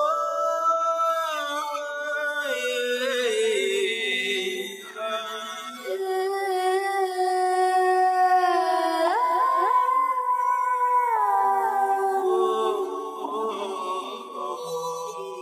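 A dog howling in long, drawn-out notes that hold and then slide up and down in pitch.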